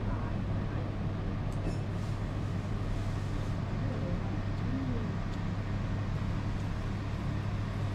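Steady low hum of restaurant room noise, with a few faint clinks of chopsticks and spoons against bowls.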